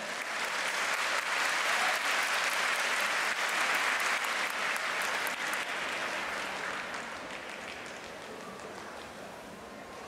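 Audience applauding, building in the first second or two and then slowly dying away over the last few seconds.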